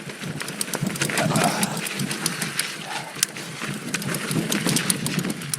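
2019 Giant Stance 2 full-suspension mountain bike rolling down a steep, loose dirt and rock trail: tyres crunching over the ground with a rapid run of clicks and knocks from the bike rattling over rough terrain.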